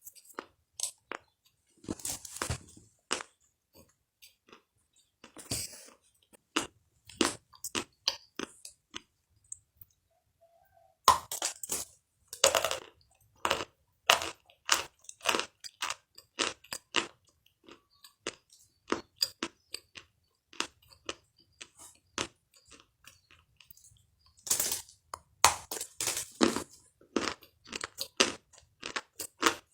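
Close-up chewing of crunchy food: irregular crisp crunches, pausing briefly near the middle and then coming thick and fast.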